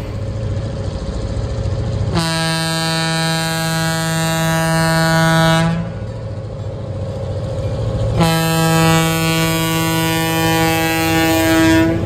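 Diesel locomotive air horn sounding two long blasts, each about three and a half seconds, over the low rumble of the passing train's engines.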